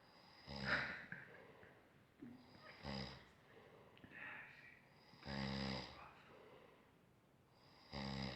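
Snoring: four buzzing snores, about one every two and a half seconds, with quieter breaths between them.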